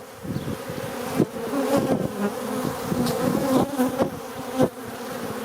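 A swarm of honeybees buzzing around a hive entrance, many of them larger bees the beekeeper takes for drones. Many overlapping wingbeat buzzes shift in pitch as bees fly close past, with a few short sharp ticks scattered through.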